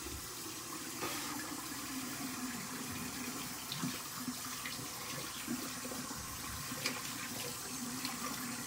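Water running from a bathroom tap into a sink, a steady rush with a few small knocks and splashes.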